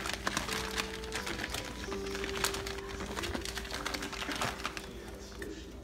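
Plastic dog-treat bags crinkling and rustling in a cardboard box as a puppy digs through them. The crackle runs on without a break, with faint steady tones underneath.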